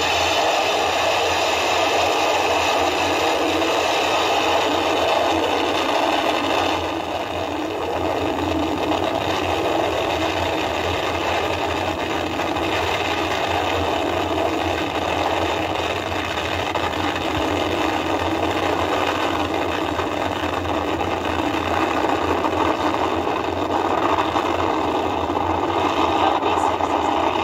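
Astra Rocket 3.3's first stage of five Delphin kerosene engines running at liftoff and through the climb: a loud, steady rocket roar with a slight dip about seven seconds in.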